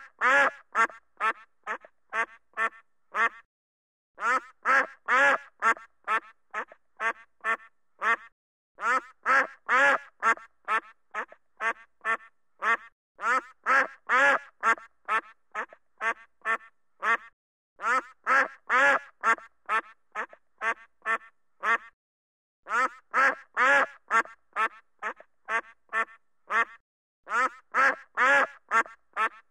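A duck quacking over and over, about three to four quacks a second, in long runs broken by a few brief pauses.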